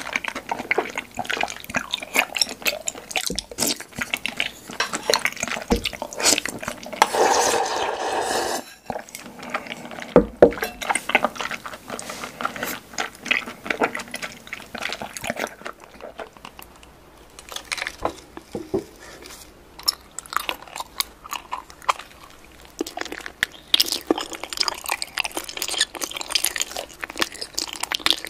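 Close-miked chewing of chewy tapioca pearls: wet, sticky mouth clicks and smacks. About seven seconds in comes a longer stretch of slurping liquid.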